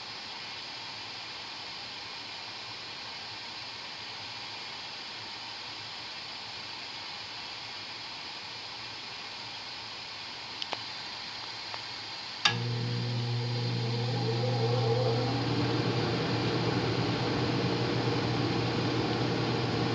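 Gas furnace burners hissing steadily; about two-thirds of the way through, a click and the air handler's blower motor switches on with a sudden hum and a rush of air that builds over the next couple of seconds.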